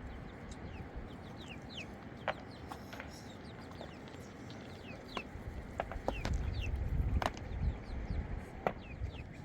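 Birds chirping outdoors in short, quickly falling chirps, with several sharp knocks and a low rumble that swells about six seconds in.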